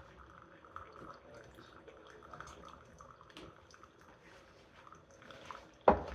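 Ninja Pods and Grounds coffee maker brewing quietly, coffee trickling and dripping into the cup, with one sharp knock near the end.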